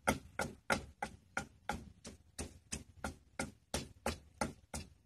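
Wooden pestle pounding in a clay mortar in a steady rhythm of about three strokes a second, mashing star gooseberries for a spicy Isan-style pounded salad.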